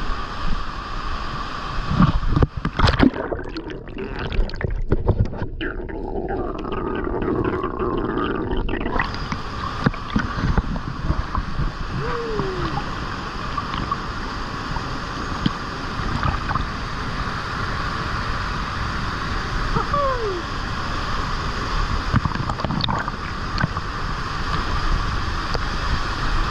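Waterfall and rushing water running steadily, with a few splashes about two to three seconds in. For several seconds after that the sound turns muffled and the high end drops out, then the open rushing returns.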